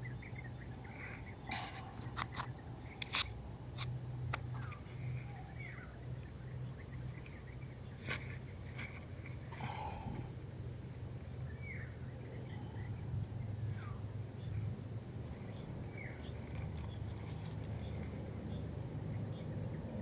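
Hands working in undergrowth to set a bird snare, with sharp clicks and snaps of stems and twigs, mostly in the first few seconds and once more near the middle. Short bird chirps come now and then over a steady low hum.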